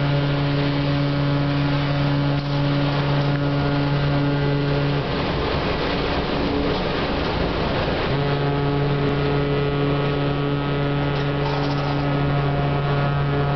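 MS Astor's ship's horn sounding two long, deep blasts as a departure signal: the first stops about five seconds in, and after a pause of about three seconds the second sounds until near the end.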